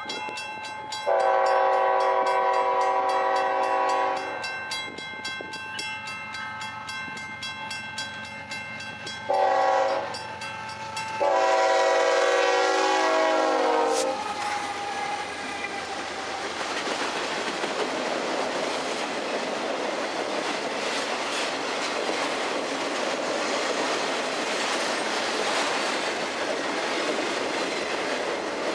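Union Pacific diesel locomotive's multi-chime air horn blowing a long blast, a short one, and another long blast as it approaches, its pitch dropping slightly as it passes. After that comes the steady rumble and wheel clatter of the autorack cars of a loaded auto train rolling by at speed.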